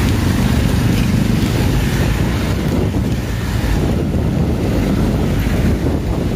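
Strong wind buffeting the microphone, a steady low rumble, over the hiss of heavy rain.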